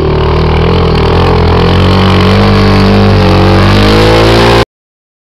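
Suzuki quad's engine running close by, loud, its pitch wavering up and down as the throttle is worked during slow turns in sand. The sound cuts off abruptly about four and a half seconds in.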